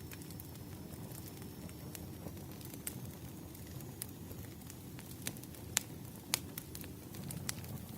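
Campfire crackling: a steady low rumble of burning wood with irregular sharp pops and snaps, the two loudest a little past halfway.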